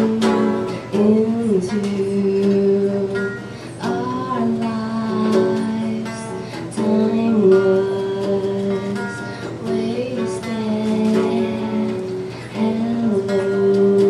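Live song: a red hollow-body electric guitar is picked and strummed through an amplifier while a singer holds long, wavering notes over it.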